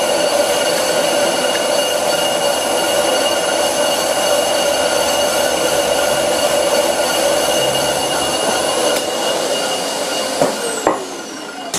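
A round carbide insert cutting the face of a cast-iron brake disc on an old bench lathe, making a steady rumbling chatter with a ringing whine: the vibration in the cut that the owner is listening for. Near the end there are two knocks and the whine falls in pitch as the noise dies away.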